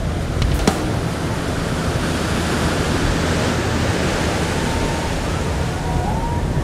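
Ocean surf washing up the beach, a steady rushing of breaking waves and foam. A couple of sharp clicks sound about half a second in.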